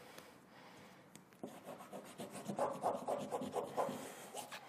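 Fingertips rubbing a sheet of paper against cotton-linen canvas in quick, even back-and-forth strokes, pressing a toner print onto the fabric. It starts about a second and a half in.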